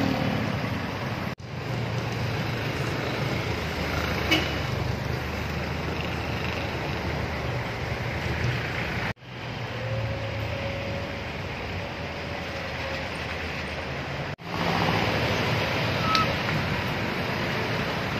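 Street traffic: jeepneys and cars passing with engines running over a steady roadway rumble. The sound drops out abruptly three times where the recording is cut.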